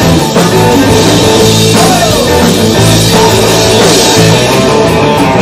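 Live rock band playing loudly, with drum kit, electric guitar and keyboard.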